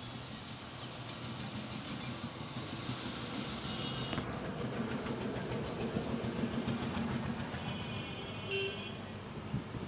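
A motor vehicle passing amid street noise, its sound growing louder over several seconds and then easing off, with short high-pitched tones about four seconds in and again near the end.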